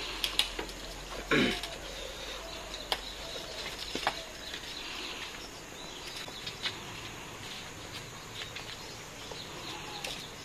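Eating by hand from steel plates: sparse light clicks and taps of fingers and food against the metal over a steady outdoor background, with one short vocal sound falling in pitch about a second and a half in.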